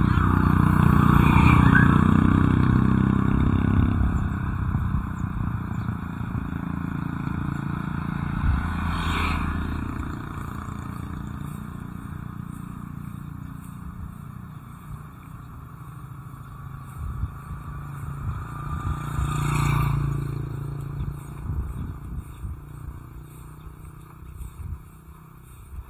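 Motor vehicles passing on a road with a steady engine rumble. The loudest pass comes in the first few seconds and fades, and a shorter swell follows about twenty seconds in.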